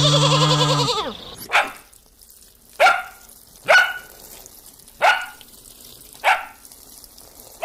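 A drawn-out bleat ends about a second in, then a dog gives single barks, six of them, about one every second and a quarter.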